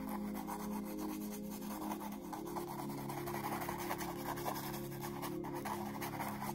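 Paintbrush bristles scrubbing paint onto a stretched canvas in quick short strokes, a dry scratchy rubbing, over soft background music of held tones.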